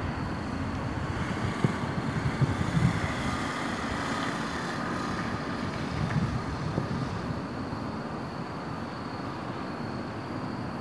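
Steady outdoor rumble with a distant vehicle passing: a faint whine swells from about a second in and fades away by about seven seconds.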